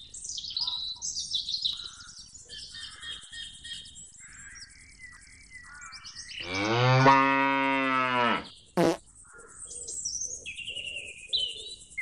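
Small birds chirping and warbling throughout. About six seconds in comes one long, low animal call lasting nearly two seconds, the loudest sound here, followed by a brief sharp click.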